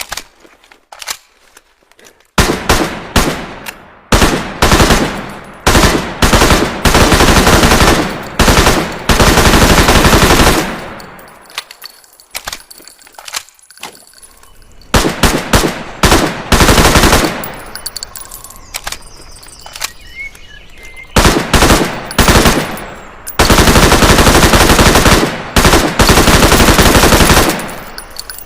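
Thompson submachine gun with a drum magazine firing on full automatic in repeated bursts. A few single clicks are followed by short bursts. Later bursts run one to four seconds each, with a pause of several seconds in the middle.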